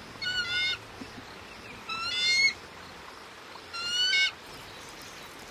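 A bird calling three times, each call about half a second long and spaced nearly two seconds apart, slightly rising in pitch.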